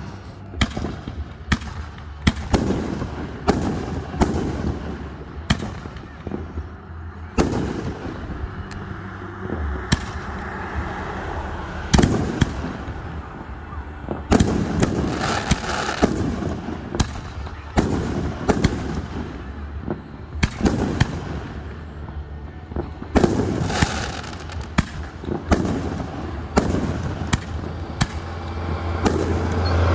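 Fireworks display: aerial shells bursting one after another, sharp bangs every second or so, coming in quick volleys twice midway and toward the end, over a steady low hum.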